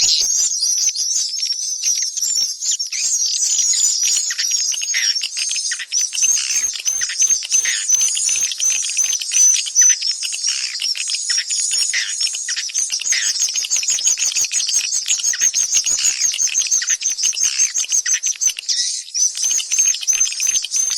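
Swiftlet call recording of the kind played to lure swiftlets into nesting houses: a dense, unbroken chorus of short high twittering chirps, several a second.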